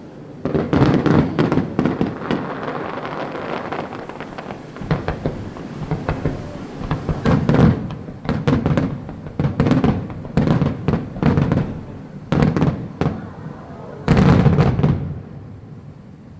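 Aerial fireworks shells bursting in quick succession, a string of loud booms with crackling after them. The loudest cluster comes near the end, then the bursts die away.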